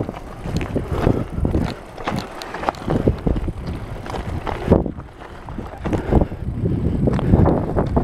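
Mountain bike descending a rough dirt trail: tyres rumbling and crunching over stones, the bike clattering over bumps, with a sharp knock about five seconds in and wind buffeting the microphone.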